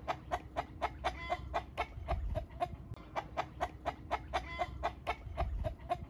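Chickens clucking: a steady run of short, repeated calls at about four a second.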